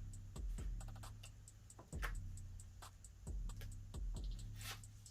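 Light clicks and taps from stationery items being handled, about one every second, each followed by a low steady hum.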